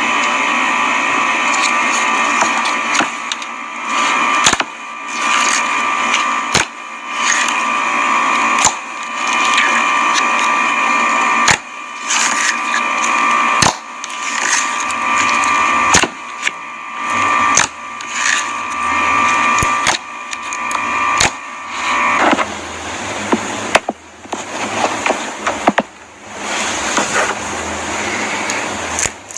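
Clear slime being squeezed and stretched close to the microphone, crackling with sharp pops and clicks every second or two. A steady hum runs under it and stops about 22 seconds in.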